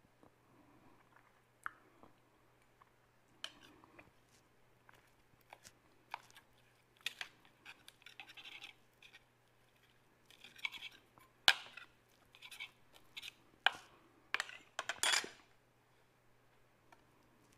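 A metal fork scraping across a slice of bread, then clinking and scraping on a plate while cutting fried egg: scattered sharp clinks and short scrapes, busier and louder in the second half.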